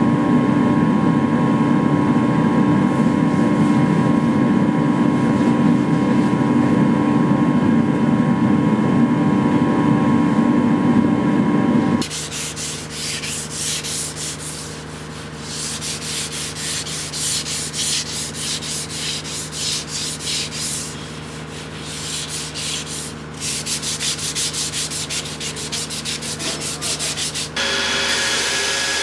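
A loud steady mechanical roar with a hum runs for about the first twelve seconds and cuts off. Then a Damascus steel blade is scoured by hand with abrasive pads on a grinder's magnetic chuck: quick back-and-forth rubbing strokes. Near the end a belt grinder's motor starts running with a steady hum.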